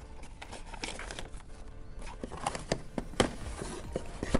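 Hands handling a laptop's cardboard box packaging and a computer mouse, giving scattered irregular taps and knocks. They grow more frequent in the second half, with the loudest knocks about three seconds in and at the very end.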